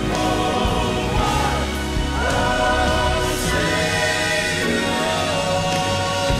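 Southern gospel male quartet singing in harmony with a live band, with a long held note through the second half.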